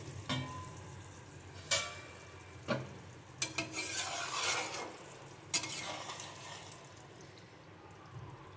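Brinjal curry simmering in a metal pan, with a spatula stirring it: several sharp knocks of the spatula on the pan and a stretch of scraping about four seconds in.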